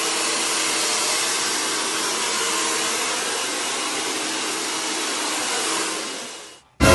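Hair dryer blowing steadily, a rush of air with a faint motor hum, which winds down and stops shortly before the end. Just before the end, a sudden loud burst breaks in.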